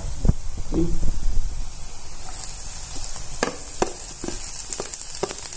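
Shredded carrot and garlic sizzling in oil in a non-stick frying pan, with a wooden spoon knocking against the pan several times. The sizzle thickens partway through as shredded cabbage drops into the hot oil.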